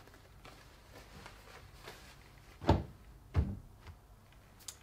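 Two dull thumps about two-thirds of a second apart, as things are set down on a tabletop, then a faint click near the end.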